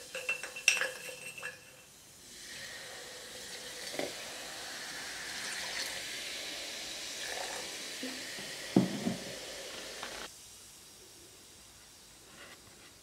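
Candy cane clinking and knocking against a glass mason jar as the jar is shaken. Then a steady fizzing hiss of baking soda reacting with vinegar, with a soft knock near the end, which cuts off suddenly about ten seconds in.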